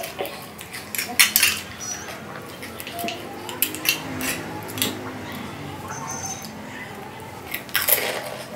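Steel spoon clicking and scraping against a plate while hollow golgappa (panipuri) shells are cracked open and filled with potato stuffing, then a louder crunch near the end as one is bitten.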